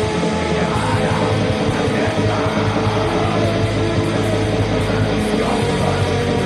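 Heavy metal music played loud and unbroken, a dense wall of distorted electric guitars.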